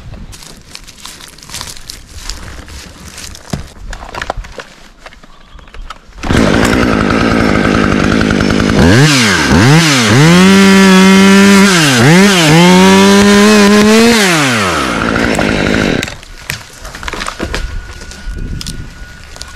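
Top-handle chainsaw going to full throttle about six seconds in and cutting into a pine trunk, engine speed dipping and recovering several times under load. It drops back near the end.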